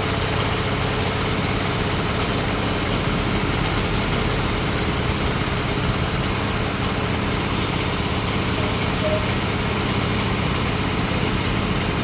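Engine idling steadily, an even low hum with rapid, regular firing pulses.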